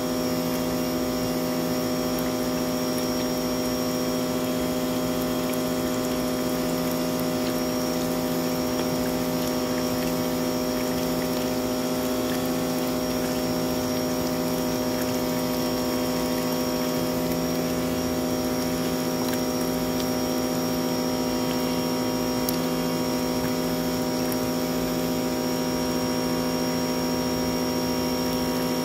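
Sun Joe SPX3000 electric pressure washer running steadily under load, driving a sewer jetter hose into a clogged drain line, with a constant motor-and-pump hum. Dirty water gushes from the drain pipe and splashes into a tub of water.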